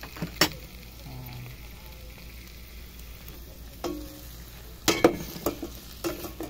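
Raw chicken pieces sizzling in a hot pot over onion and ginger while a metal spoon stirs them, knocking sharply against the pot several times, loudest about five seconds in.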